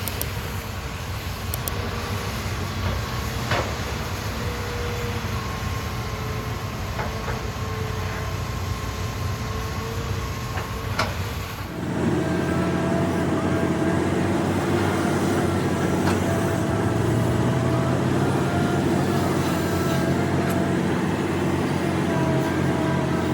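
Hitachi Zaxis excavator's diesel engine and hydraulics working while digging soil and rock, with a few sharp knocks in the first half. About halfway through the sound changes abruptly, becoming louder and steadier with a held whine.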